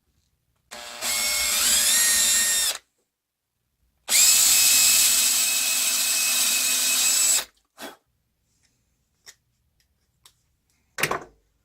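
Dremel rotary tool grinding wood in two runs with a high-pitched whine: the first about two seconds long, rising in pitch as it spins up; the second a steadier run of about three seconds. A few faint ticks follow, and there is a brief noise near the end.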